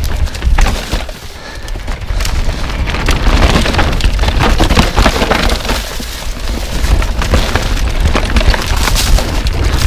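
Mountain bike descending a forest trail at speed: tyres crackling over dry leaves and dirt, with a dense run of clicks and rattles. A heavy low rumble of wind buffets the camera microphone throughout.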